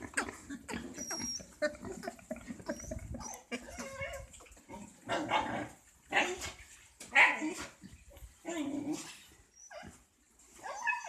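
Pigs calling in a string of short, harsh cries, several loud ones about a second or two apart in the second half, with quieter calls between.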